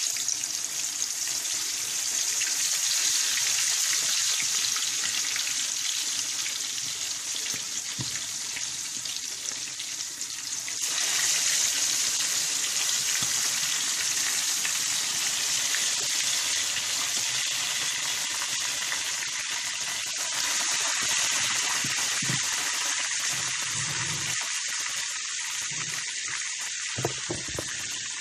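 Marinated chicken pieces deep-frying in hot oil: a loud, steady sizzle that flares up about eleven seconds in as more pieces go into the pan.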